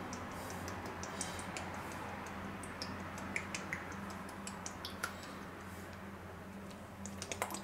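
Rice wine poured from a spouted bottle onto sliced pork in a stainless-steel bowl, with scattered faint ticks and clicks over a steady low hum.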